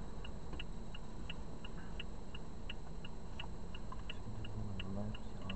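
Car turn-signal indicator clicking steadily in the cabin, about three clicks a second, over a low engine and road hum.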